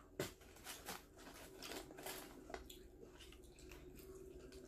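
Faint sounds of fried chicken being bitten and chewed, with small irregular clicks and taps from handling the food, the sharpest just after the start. A faint steady hum sits beneath.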